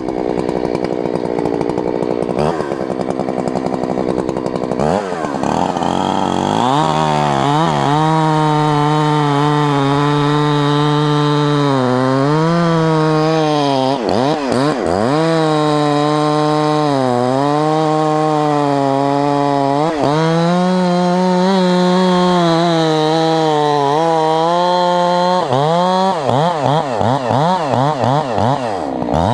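Two-stroke chainsaw stripping bark from a pine log. It runs at lower speed for a few seconds, then goes to full throttle, its pitch dipping and recovering again and again as the chain bites and is eased off, and drops back near the end.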